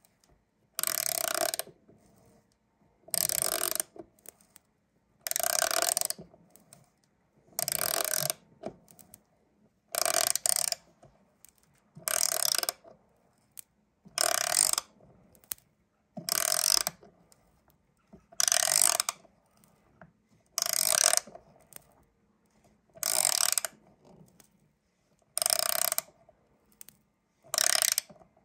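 A #10 x 1/2" pan-head sheet metal screw being driven into softwood with a hand screwdriver, turned in strokes: a short burst of grinding and clicking about every two seconds, thirteen times.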